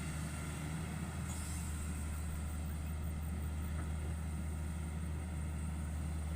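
Hitachi 110 hydraulic excavator's diesel engine running steadily.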